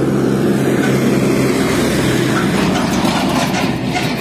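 An engine running close by, a steady low hum that fades somewhat near the end, with cloth rubbing against the microphone.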